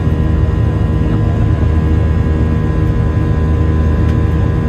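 Boeing 737-900ER's CFM56-7B turbofan engines running at climb power just after takeoff, heard inside the cabin: a steady deep rumble with a few steady whining tones above it.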